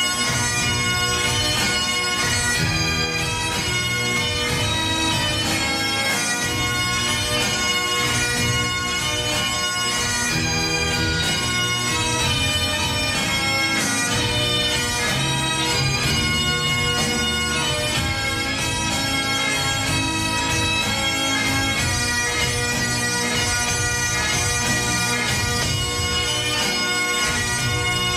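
Bagpipes playing a tune, the melody moving over steady held drones without a break.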